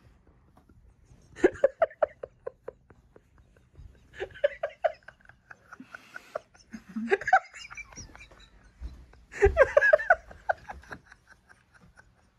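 People laughing in four bursts of quick repeated ha-ha pulses, the longest and loudest near the end.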